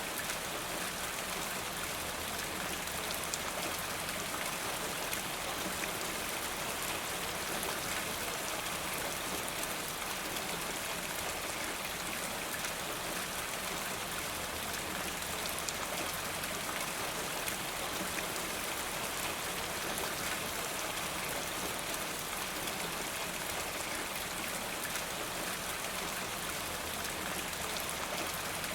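Steady rain with scattered sharp drips of water falling from a rain gutter. The level holds even throughout.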